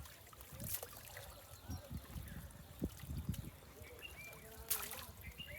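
Water trickling and splashing, with two short sharp noises, one about a second in and one near the end.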